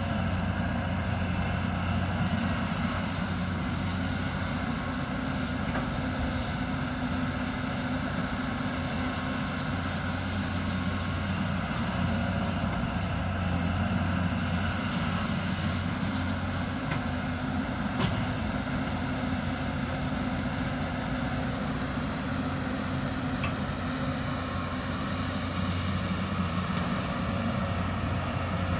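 Hyundai 220 excavator's diesel engine running steadily while it digs, with one sharp click about two-thirds of the way through.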